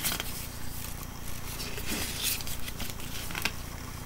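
Paper rustling and soft crackles as the pages of a small printed booklet are flicked through and handled.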